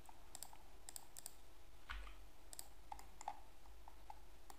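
Faint, irregular clicks of a computer mouse and keyboard, roughly one or two a second, over a faint low hum.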